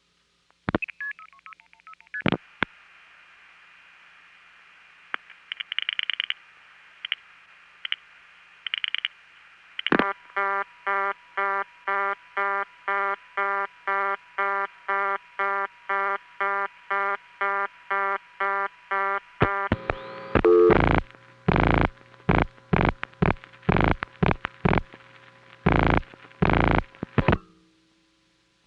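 Recorded long-distance telephone call over a crossbar switching network: a few switching clicks, then faint line hiss with short bursts of multifrequency pulsing tones. About ten seconds in, a buzzy tone starts pulsing about twice a second. Near the end it gives way to louder, irregular clicks and bursts until the line goes quiet.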